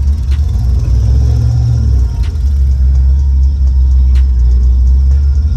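LS1 V8 engine running, a steady deep rumble heard from inside the car's cabin.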